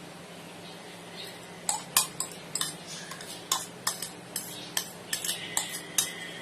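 Cutlery clinking against a dish while noodles are eaten: about a dozen sharp clinks, irregularly spaced, starting a couple of seconds in.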